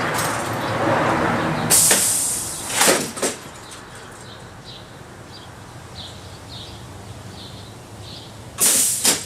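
A pneumatic air cylinder working a PVC scissor-hinge prop: a loud hiss of exhausting air about two seconds in, followed by two clunks of the mechanism, and a second hiss and clunk near the end. The arm is binding; the builder puts this down to the PVC catching on a corner under the weight.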